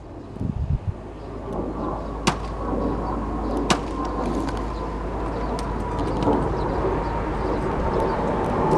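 A machine starts up about a second in and runs with a steady low hum and a faint whine that sinks slowly in pitch. Two sharp knocks, about a second and a half apart, stand out over it.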